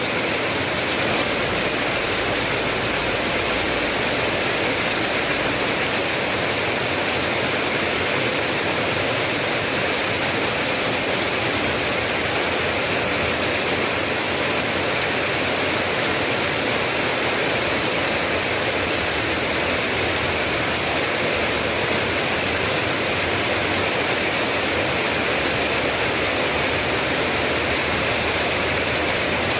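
Steady rain, an even hiss with no single drops or thunder standing out.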